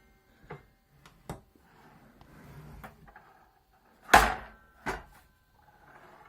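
Hard objects being handled: a few light clicks, then a loud knock about four seconds in and a smaller one just after, with faint rustling between.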